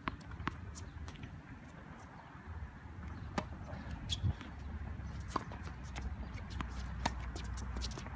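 Tennis rally on a hard court: irregular sharp knocks of rackets striking the ball and the ball bouncing, with shoes scuffing the court.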